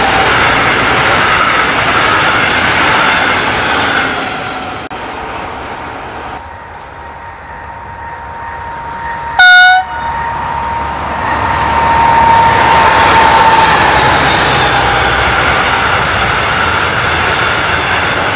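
Double-deck regional train hauled by a DB class 218 diesel-hydraulic locomotive: the rumble of a passing train dies away, then a second train approaches and sounds one short, very loud horn blast about halfway through. The locomotive's steady whine grows as it nears and passes.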